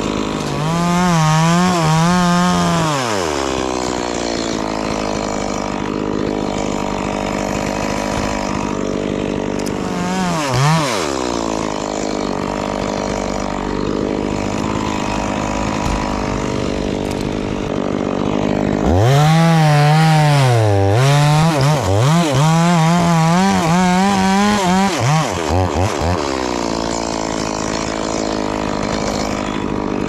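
Two-stroke Stihl chainsaw idling between bursts of high revving while cutting up a coconut palm trunk. It revs in a short burst near the start, briefly again around the middle, and then for about six seconds in the second half, where the pitch repeatedly sags and recovers as the chain bites.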